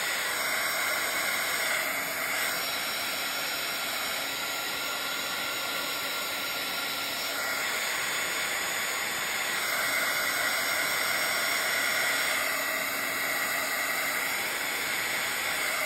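Craft heat tool blowing a steady hiss with a faint whine from its motor, drying wet paint on the page.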